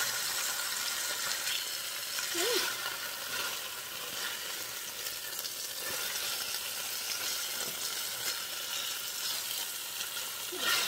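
Chuck roast searing in hot fat in an enameled cast-iron Dutch oven: a steady sizzle as the meat is turned over with metal tongs.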